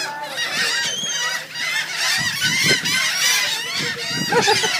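A flock of gulls calling all at once: many short, overlapping squawks.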